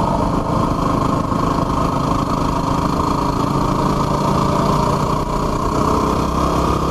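Yamaha WR250R's single-cylinder four-stroke engine running steadily, its pitch holding even.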